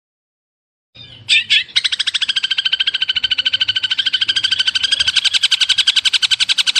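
Song-training (masteran) recording of an animal call for a long-tailed shrike: about a second in, two sharp notes, then a rapid, very even pulsed trill of about a dozen pulses a second, high-pitched and held steady.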